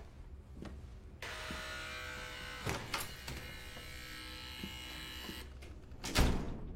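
A steady electric buzz that starts about a second in and stops suddenly a little after five seconds, with a couple of sharp clicks in the middle, then a loud thud near the end.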